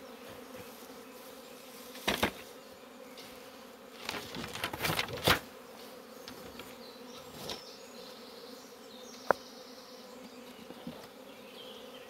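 Honey bees buzzing in a steady hum, flying in the air after being shaken out of their hive. Wooden hive parts being handled give a knock about two seconds in, a cluster of knocks and rustles around four to five seconds, and a sharp click near the end.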